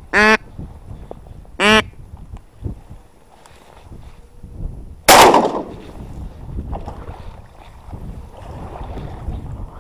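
Two short duck quacks in the first two seconds, then a single shotgun shot about five seconds in, the loudest sound, with a short ringing tail.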